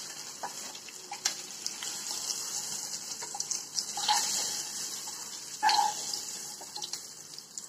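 Turmeric- and chilli-coated boiled eggs frying in shallow oil, a steady sizzling hiss, while a wooden spatula lifts them out of the pan. A few knocks and clinks from the spatula and eggs against the pan and bowl, the loudest about four and six seconds in.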